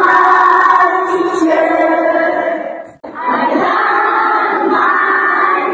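A group of voices singing together in two phrases, with a short break about three seconds in.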